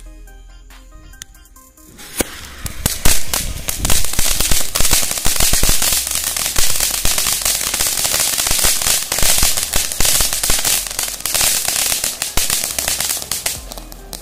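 Argo tri-colour anar, a cone-shaped flower-pot fountain firework, catching about two seconds in and then spraying sparks with a loud, steady hiss full of dense crackling, easing off near the end.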